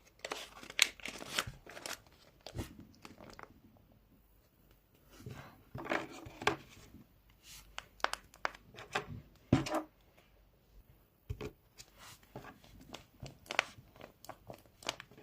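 Sanrio Flipperz squishy toy being handled, likely in its packaging, close to the microphone: irregular crinkling, rustling and clicking in short clusters with quiet gaps between.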